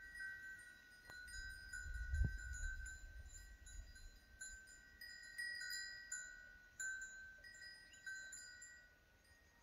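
A small metal bell or chime ringing on and off at irregular moments, the same two high notes each time, each strike ringing briefly. A gust of wind rumbles on the microphone about two seconds in.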